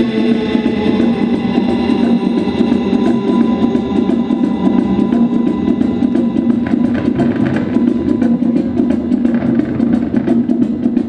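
A rock band playing loud live music, a drum kit beating steadily under dense sustained instruments.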